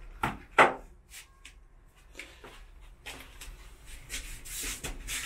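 A hammer knocking nails into wooden wall panelling: a few sharp knocks, the loudest about half a second in, then scattered lighter taps and rustling.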